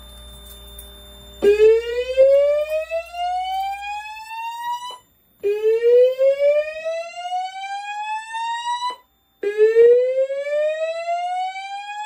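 Fire alarm speaker on a Notifier voice-evacuation system sounding a slow whoop evacuation tone: three rising sweeps, each lasting about three and a half seconds with a short break between, beginning about a second and a half in.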